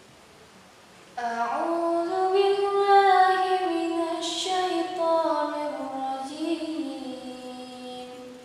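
A teenage girl reciting the Quran in a melodic chanted style (tilawah). One long phrase starts about a second in, with held notes that rise and fall slowly, and fades out near the end.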